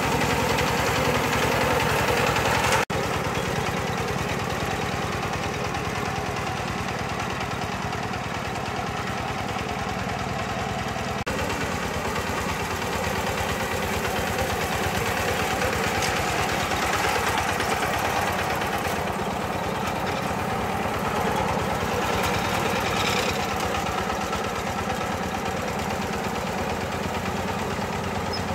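Power tiller's single-cylinder diesel engine running steadily under load as it drives a front-mounted paddy reaper cutting rice. The sound breaks off for an instant about three seconds in, then carries on at the same pace.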